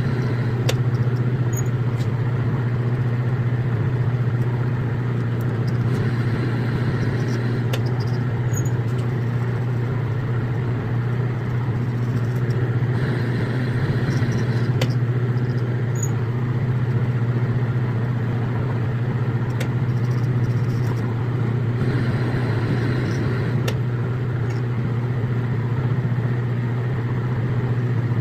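Metal lathe running steadily while threading a rifle barrel, a strong even hum with faint clicks now and then, played at double speed.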